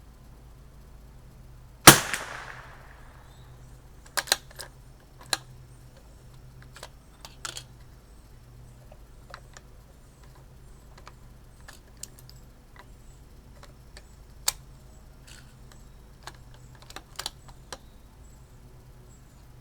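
A single shot from a CZ 457 bolt-action .22LR rifle about two seconds in, followed by a scattering of sharp mechanical clicks and knocks.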